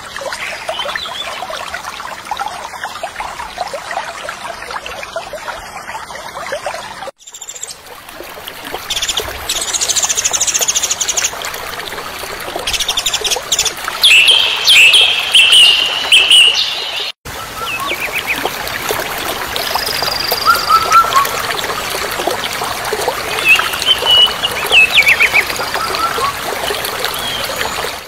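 Water rushing over a weir, a steady hiss of falling water, with birds chirping over it at times, loudest in the middle. The sound cuts out for an instant twice.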